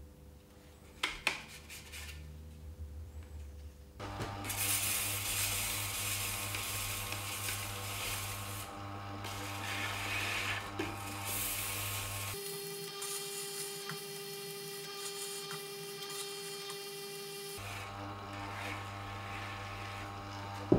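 Tormek T7 sharpening machine running while a chisel is honed on its leather honing wheel dressed with honing compound, a steady rubbing hiss over the motor's hum from about four seconds in.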